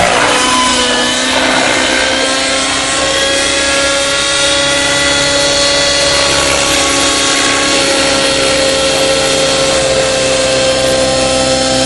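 Align T-Rex 700N nitro RC helicopter's glow engine and rotor whining loudly and steadily in flight, its pitch dropping in a brief sweep at the start.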